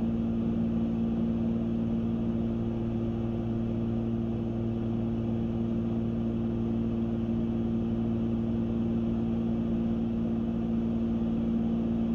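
Cockpit drone of a Cessna 310Q's twin piston engines and propellers in steady cruise: a constant hum with several fixed low pitches that does not change.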